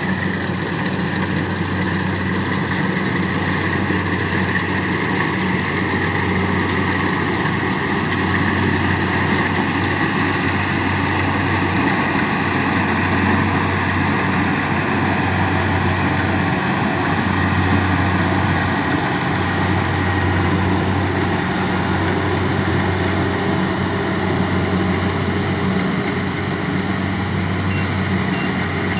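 Engine of a heavy rice-harvesting machine running steadily, a continuous low drone with a faint high whine above it.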